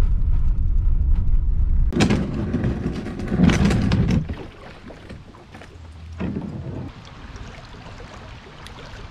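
Low rumble of a vehicle driving along a dirt track, heard from inside the cab, for about the first two seconds. It cuts off suddenly to louder outdoor noise for about two seconds, then quieter wind and moving water around a kayak on a river.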